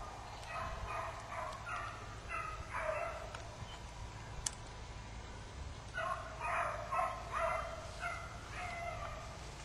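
Pack of hunting beagles baying out of sight while running a track, in quick strings of short, repeated bays. The bays come in two bursts with a lull of about three seconds in the middle.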